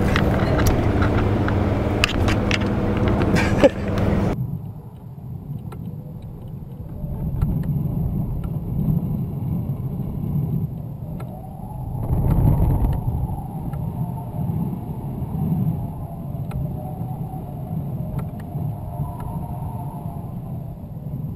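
Road noise inside a moving car's cabin for about four seconds, then a sudden change to a quieter, uneven low rumble picked up by the high-altitude balloon payload's camera as it climbs, with a faint steady high-pitched whine.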